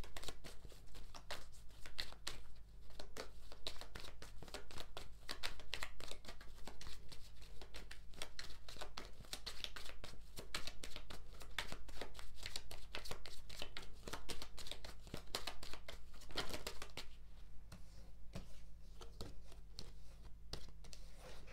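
Tarot cards being shuffled and drawn by hand: a dense, continuous run of quick card clicks and rustles.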